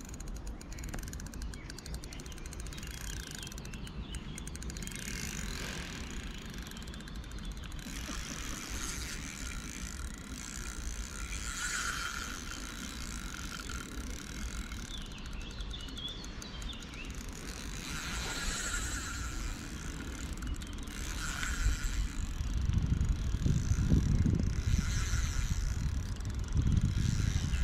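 Spinning fishing reel being handled and wound, its mechanism ticking, with birds calling now and then. A louder low rumble comes in over the last few seconds.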